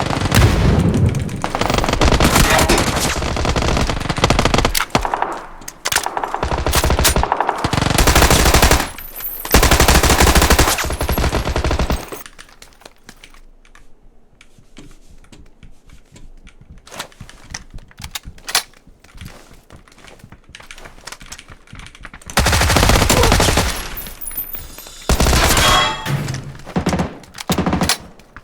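Automatic gunfire from a first-person shooter game, in long rapid bursts with a quieter stretch of scattered single shots and clicks in the middle.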